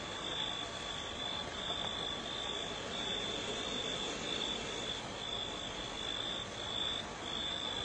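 A high chirp at one steady pitch, repeating about once every two-thirds of a second over a steady hiss: an animal calling.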